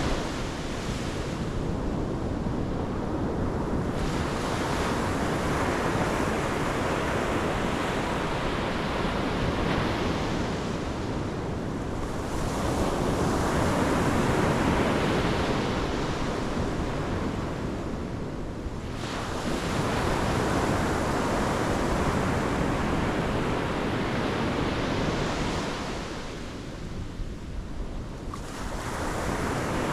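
Pacific Ocean surf breaking and washing up the shore in a continuous rush that swells and falls back as each wave comes in, every several seconds.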